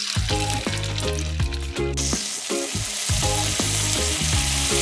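Small pieces of seasoned mashed potato frying in a miniature pan: a steady sizzle that sets in about two seconds in.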